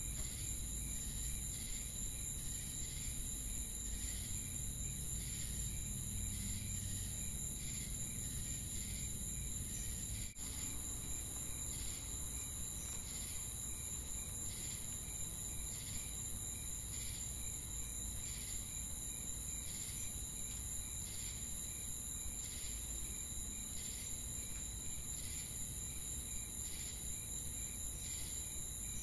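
Crickets chirping in a night-insect ambience: a steady high-pitched trill with regular chirps about once a second. There is a brief dropout about ten seconds in.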